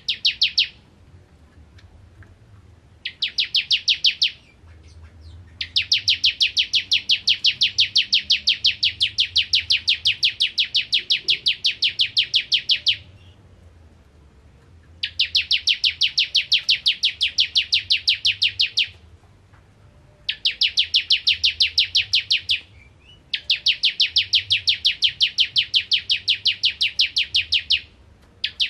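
Bar-winged prinia (ciblek) singing in rapid-fire runs of evenly repeated high notes, several a second. Six runs come with short pauses between them, the longest lasting about seven seconds.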